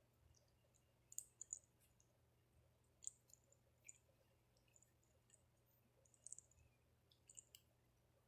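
Faint, scattered high clicks and crackles in short clusters from a monkey grooming a woman's hair and eyelashes.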